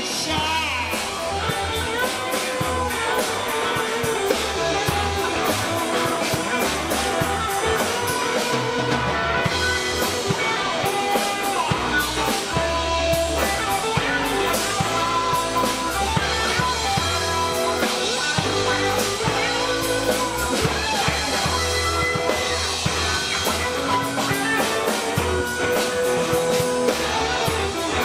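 Live rock band playing an instrumental passage with no vocals: electric guitars over drum kit and bass. The music plays loudly and steadily.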